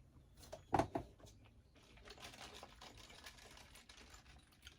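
Quiet eating sounds from a pizza mukbang: scattered small clicks and rustles of chewing and handling the slice, with two louder clicks about a second in.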